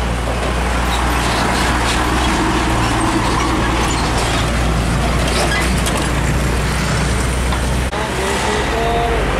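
Diesel engine of a Nissan Diesel six-wheel box truck running as the truck drives close by, a steady low drone with road noise. About eight seconds in, the sound cuts to another truck's engine.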